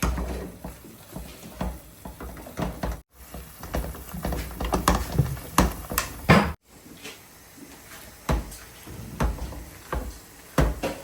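Kitchen clatter: a run of irregular knocks and taps, such as cupboard doors and utensils being handled. It breaks off into silence twice, briefly.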